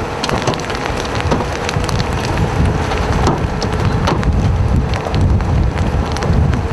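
Hail and rain pelting the storm-chase van: scattered sharp knocks of hailstones on the body and windows over a steady hiss of rain, with a low rumble growing stronger toward the end.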